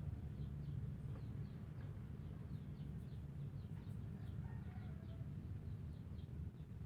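A steady run of short, high chirps, each falling slightly in pitch, about three a second, from an unseen small animal. This is the strange sound heard around the tree. A low rumble runs underneath.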